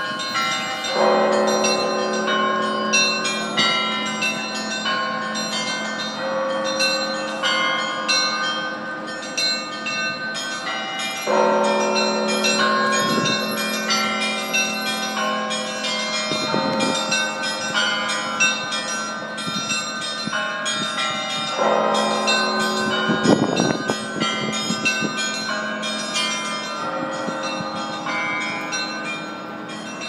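Russian Orthodox cathedral bells pealing: small bells chime rapidly and without pause, while a deep bell is struck three times, about ten seconds apart.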